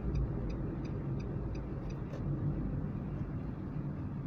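Steady engine and road rumble inside a moving car's cabin. For the first two seconds or so the turn signal ticks lightly, about three times a second, then stops.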